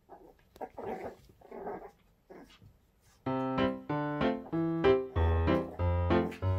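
Toy poodle puppy making short play growls and yips in a few quick bursts. About three seconds in, louder bouncy piano background music starts and takes over.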